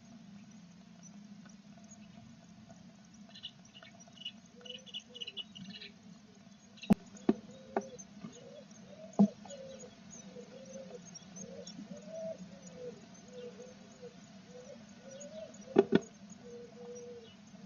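Tit nestlings giving short high begging chirps a few seconds in, over a steady low hum, with a few sharp knocks scattered through.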